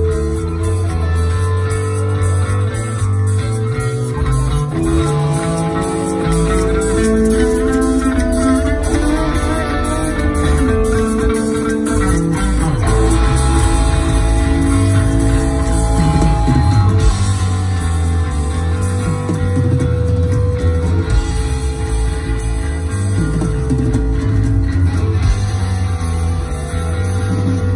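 Punk rock band playing live and loud with no vocals: electric bass, electric guitar and drums, with long held notes over a heavy bass line.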